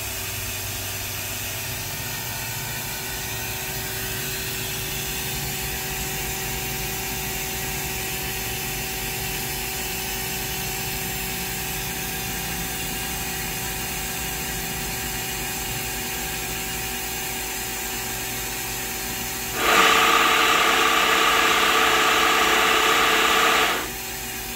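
Live tooling on the turret of a Ganesh Cyclone 32CS CNC turning center spinning at a set speed, a steady machine hum with several steady tones. About 20 seconds in, a much louder noise with a whine starts suddenly and cuts off about four seconds later.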